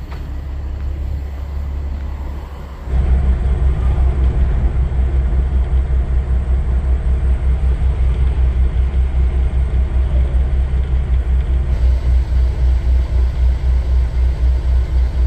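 Semi truck's diesel engine running, a low rumble that gets louder about three seconds in and then carries a fast, even low pulsing.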